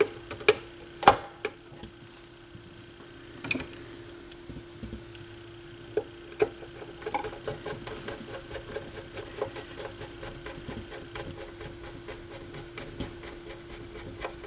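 Metal turntable parts being handled and fitted back into a turntable chassis: scattered light clicks and knocks as the tonearm base assembly is seated, then, from about halfway, a long run of rapid light ticks and scrapes. A steady faint hum runs underneath.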